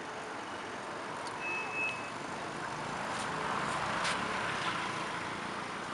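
A motor vehicle passing, its noise swelling to a peak about four seconds in, with a short steady high beep about one and a half seconds in.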